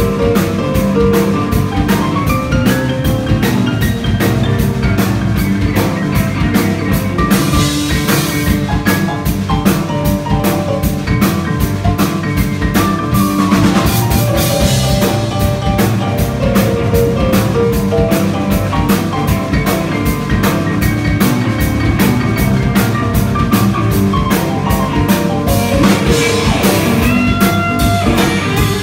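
Live rock band playing an instrumental passage: electric guitar and bass guitar over a drum kit, Sakae Trilogy drums with Zildjian cymbals, keeping a steady beat.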